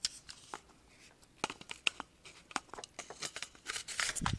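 Crinkling and rustling of packaging mixed with quick sharp plastic clicks and knocks as a small airsoft gun is handled, growing busier and louder in the second half.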